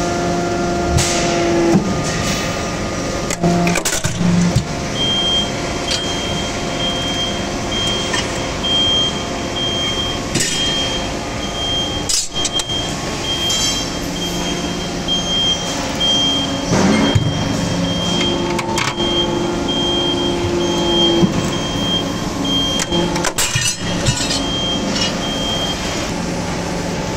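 Hydraulic press running with a steady pump hum and several sharp clanks. A high beep repeats about twice a second from about five seconds in until near the end.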